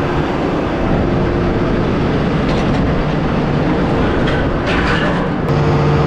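Diesel being pumped from a farm bulk tank through a nozzle into a combine's fuel tank: a steady rushing noise, with a low hum joining near the end.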